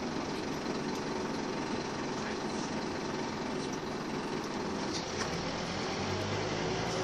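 Scania K230UB Omnilink single-deck bus heard from inside the saloon on the move: its nine-litre five-cylinder diesel engine running steadily under the cabin and road rumble. About five seconds in, a deeper low hum from the engine comes in.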